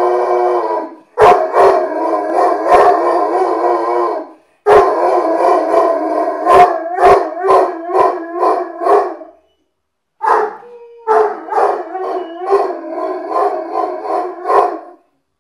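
An Irish Wolfhound howling: four long howls with short breaks between them, the last two wavering in quick pulses.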